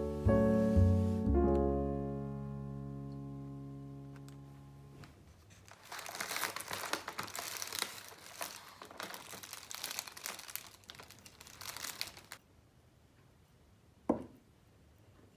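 Piano music fading out. Then crinkling and rustling of a cellophane and kraft-paper flower wrapping being handled for about six seconds, and a single short knock near the end.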